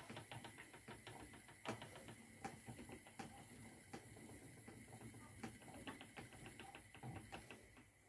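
Spinning wheel running as yarn is spun, faint rapid clicking and ticking from its mechanism, with a faint steady whine beneath; both stop shortly before the end.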